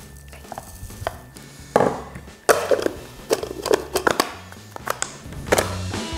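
Panko breadcrumbs being crushed finer: irregular sharp knocks and crunches, about half a dozen strikes from about two seconds in, over soft background music.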